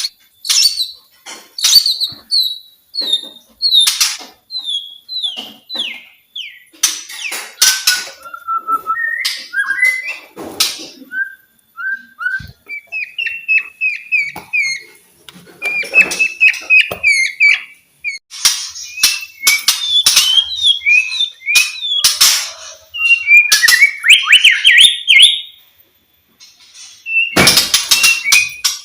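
White-rumped shama (murai batu) singing: loud, varied phrases of repeated whistled notes, many in quick falling runs, mixed with sharp clicking notes, with a short pause a little before the end.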